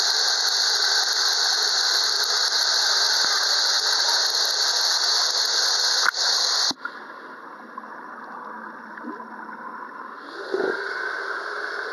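Water from a pool cascade pouring and splashing into bubbling pool water, heard close at the surface as a loud steady rush. A little over halfway through the microphone goes under water and the rush cuts off suddenly, giving way to a quieter, muffled underwater sound with a brief swell near the end.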